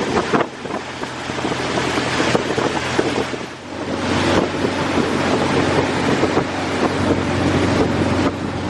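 Motor running steadily under heavy wind buffeting on the microphone during a fast ride.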